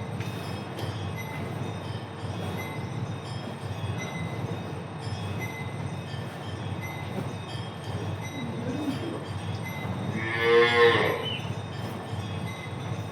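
A cow moos once, a loud call about a second long about ten seconds in, with a fainter, shorter call a little before it. A steady low rumbling noise runs underneath.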